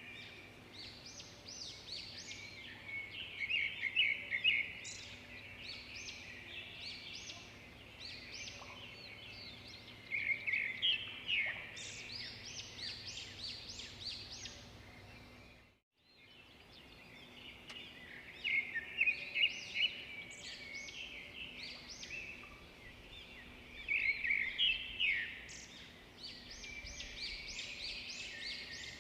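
Songbirds chirping and singing, many short overlapping calls and quick trills, louder in bursts every few seconds. The sound drops out briefly about halfway through, then the birdsong resumes.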